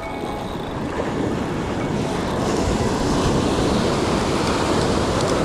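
Ocean surf washing up the beach, a steady rushing that grows louder about two seconds in.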